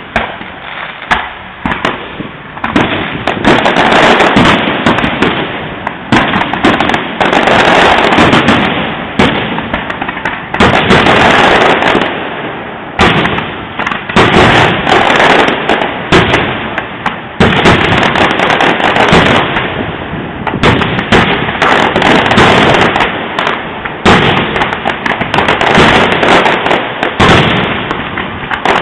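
A dense fireworks display: rapid, overlapping bangs and crackling bursts with no pause, swelling and easing every few seconds.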